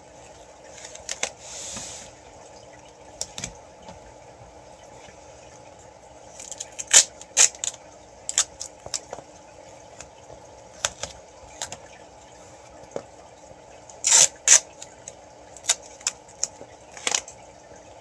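Duct tape being pulled off the roll, torn into strips and pressed onto the side of a plastic tote: a longer rip about a second and a half in, then a string of short sharp tears and crackles, the loudest in pairs around seven and fourteen seconds in.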